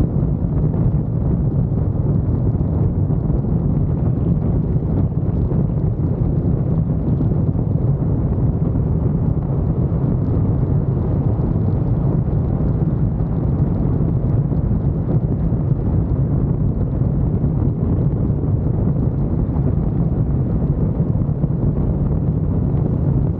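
Steady low rumble of a car being driven: road and wind noise, with wind buffeting the microphone.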